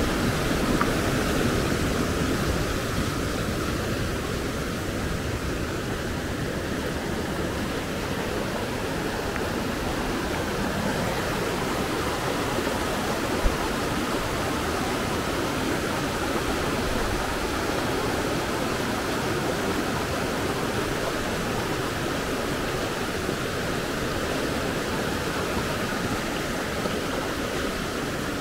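Fast mountain stream running over boulders and rapids: a steady, even rush of water, with one brief click about halfway through.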